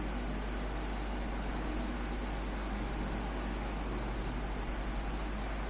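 A steady high-pitched electrical whine with a low hum underneath, over a faint even hiss.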